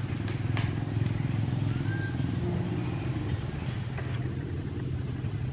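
An engine running steadily, a low continuous rumble.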